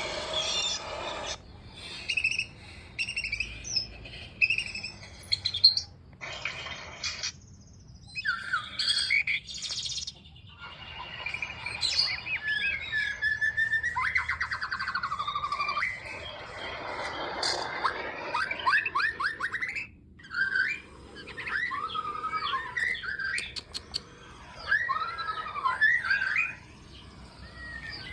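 White-rumped shama (murai batu) singing a long, varied song of clear whistles, rising and falling glides, fast trills and harsh scratchy notes, with short pauses between phrases.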